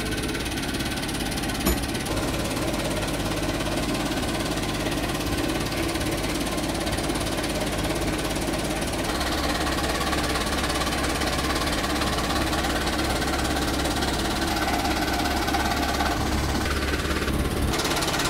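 JCB backhoe loader's diesel engine idling steadily with a rough clatter, heard close by. One sharp tick about two seconds in.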